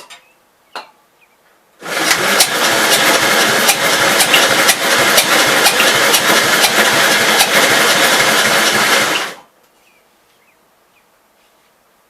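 1952 Gravely L's single-cylinder engine cranked over by its starter for about seven and a half seconds, trying to fire, then cut off abruptly. The owner suspects a badly leaking intake, and that it runs only on carb cleaner.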